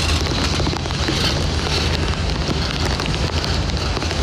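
Steady wind rumbling on the microphone, with rain falling.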